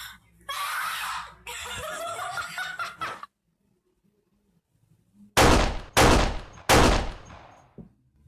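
Three loud, sharp bangs in quick succession, about two-thirds of a second apart, each with a short fading tail, after a few seconds of a voice.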